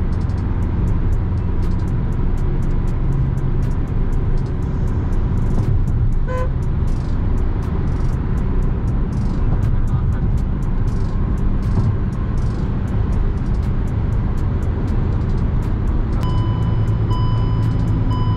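Steady road, tyre and engine noise inside the cabin of a Hyundai i20 petrol hatchback cruising at highway speed. A short electronic beep sounds about six seconds in, and near the end an electronic beep repeats about once a second.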